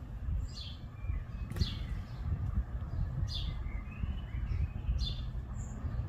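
Small birds chirping: short, high notes that slide down in pitch, about one every second or two, over a low steady rumble.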